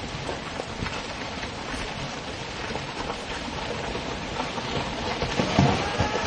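Rockfall: loose stones and debris clattering down a steep mountain slope, a dense patter of small impacts over a steady rush of noise, growing a little louder near the end.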